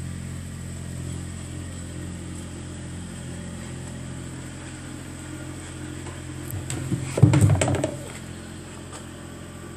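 A steady low machine hum, with a short burst of loud knocking and rustling about seven seconds in.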